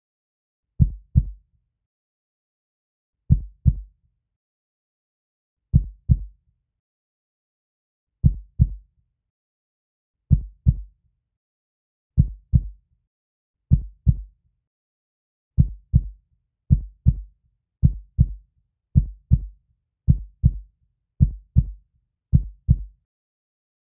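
Heartbeat sound effect: paired low thumps (lub-dub) with silence between them. The beats come steadily faster, from about one every two and a half seconds to about one a second, and stop about a second before the end.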